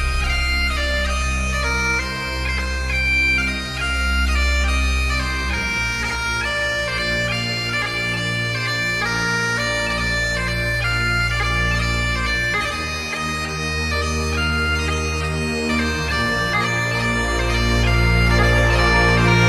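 Bagpipe music: a melody played over sustained low notes.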